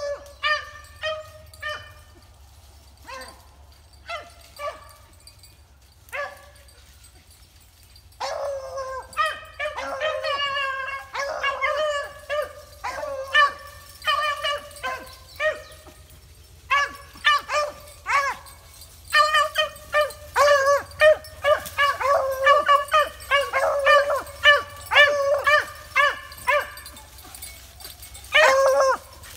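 Beagles baying on a rabbit's trail: scattered single barks at first, then from about eight seconds in a near-continuous run of quick, overlapping high-pitched barks, the chop of the pack running the track.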